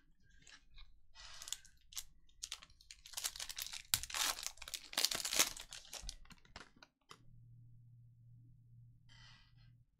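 Trading card pack wrappers being torn open and crinkled: a dense run of crackling and tearing that stops about seven seconds in, after which only a low steady hum remains.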